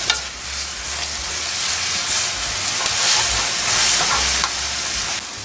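Glass noodles cooking in seasoned water in a hot wok, hissing and sizzling, with a wooden spatula stirring and scraping through them. The hiss grows louder around the middle.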